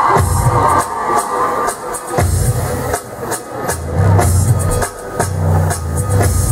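Show music from a stage musical, with a drum kit keeping a steady beat over a deep bass line that comes in stronger near the end.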